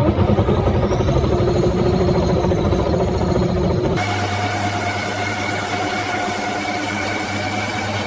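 Washing machine motor running hard at 350 volts, far above its rated voltage: a loud low hum with a faint rising whine about a second in. About four seconds in the sound changes abruptly to a lighter hum with a steady higher-pitched whine.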